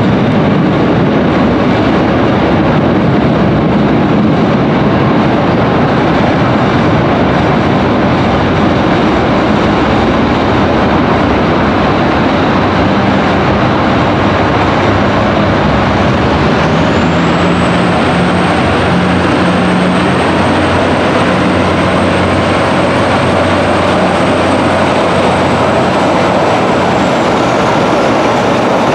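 Montreal Metro diesel work tractor hauling a wagon as it approaches through the tunnel into the station, a loud, steady engine-and-rail rumble echoing off the vault. A thin, high whine sets in a little past halfway and holds until it fades near the end.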